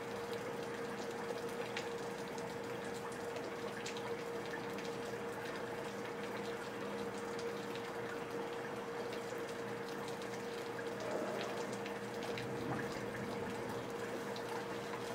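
Steady rain with water running and dripping from leaky gutters, scattered drips through it, over a faint steady hum.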